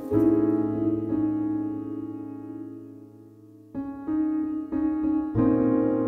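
Background music: a piano chord rings and slowly fades for over three seconds, then several new chords are struck in quick succession.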